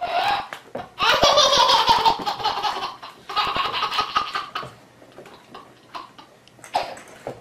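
Baby laughing hard in two long bouts, the first about a second in and the second around three and a half seconds in, with a few short sharp clicks under the first.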